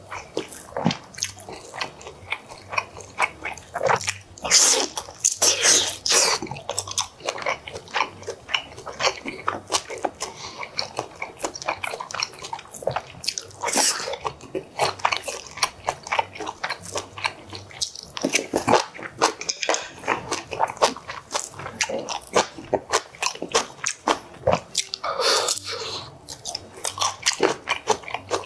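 Close-miked eating: chewing and biting of braised pork and kimchi with rice, a steady run of small wet mouth clicks with a few louder bursts along the way.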